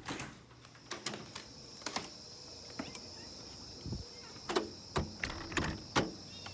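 A series of irregular knocks and clicks, about a dozen, with a steady high thin whine that starts about a second in.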